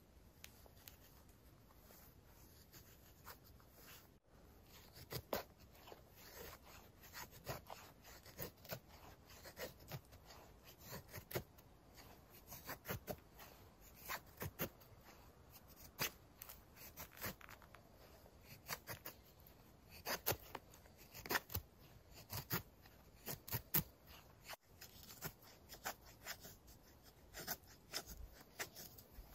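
Knife carving a feather stick: a long, irregular run of short scraping cuts as curls are shaved off the wood, starting a few seconds in, some strokes much louder than others.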